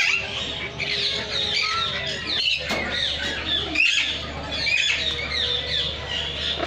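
A dense chorus of many small aviary birds chirping and squawking at once: short, quick notes overlapping without a break.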